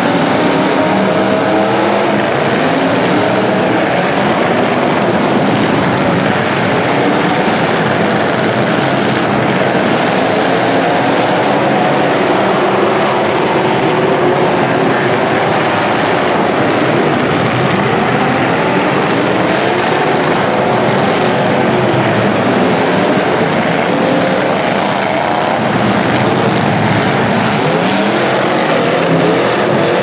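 Several demolition-derby car engines revving at once, their pitches rising and falling over one another in a continuous loud din.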